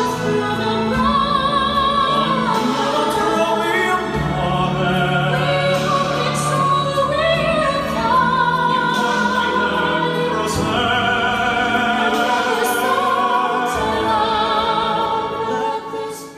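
Operatic singing with vibrato over an orchestral accompaniment, played back over Sonus Faber Extrema loudspeakers in the listening room; the music cuts off suddenly near the end.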